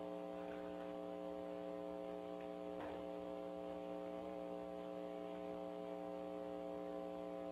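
Steady electrical hum on a recorded telephone line: a low, even buzz with a stack of overtones that does not change.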